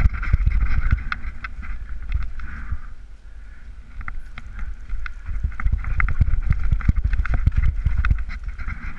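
Mountain bike rolling down a rough forest trail: wind rumbling on the microphone, with frequent knocks and rattles from the bike over bumps and roots. It eases briefly about three seconds in, then picks up again.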